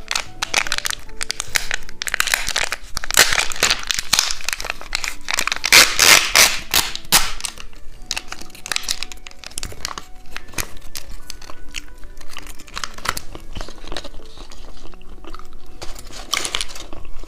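Plastic snack wrapper crinkling and tearing as it is handled and opened, loudest between about two and seven seconds in and again briefly near the end, over background music.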